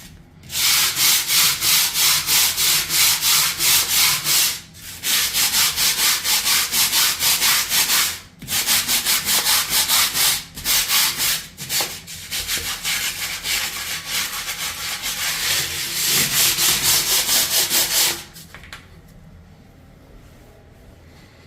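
Stiff-bristled grout brush scrubbing tile grout by hand in quick back-and-forth strokes, about two or three a second, with a few short pauses. The scrubbing stops about 18 seconds in.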